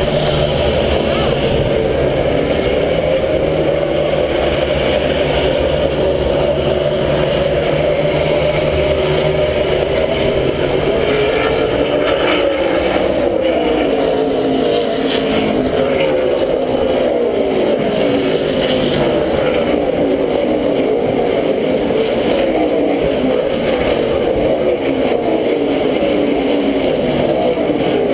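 A field of NASCAR stock cars' V8 engines running at speed, many engine notes overlapping and rising and falling as cars go by.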